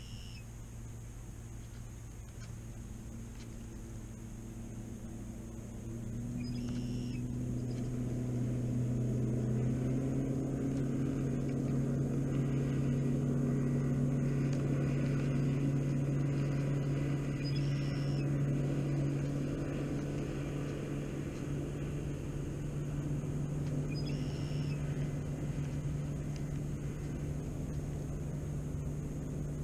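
An engine's low, steady hum that grows louder about six seconds in and then holds, with a bird's short call heard four times.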